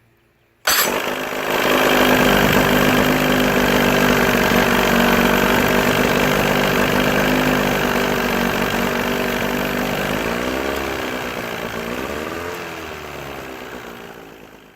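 Mid-1980s Johnson 35 two-stroke outboard motor catching at once about a second in and running steadily; near the end its pitch dips and rises twice, then the sound fades. A prompt start is the test of whether cleaning a bad ignition harness connection cured its hard starting when warm.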